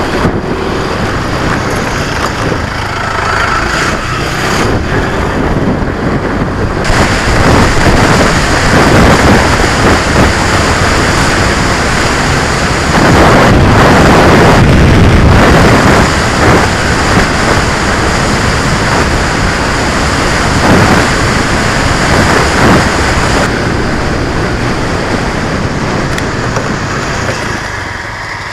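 Small 125cc motorcycle being ridden at road speed, its engine running under heavy wind rush on the helmet camera's microphone. The rush is loudest about halfway through.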